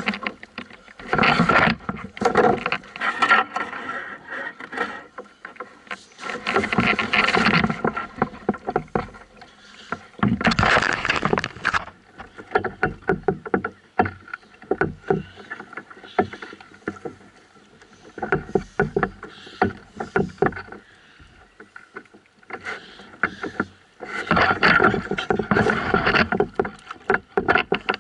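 Knocking, scraping and rustling inside a canoe as a large caught flathead is handled and moves against the hull and gear, in four loud clusters of a few seconds each with scattered lighter knocks between.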